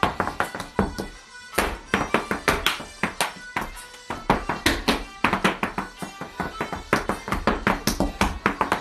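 Hard-shoe dance steps striking a wooden floor: rapid, sharp clicks in quick rolls and single beats, with background music under them.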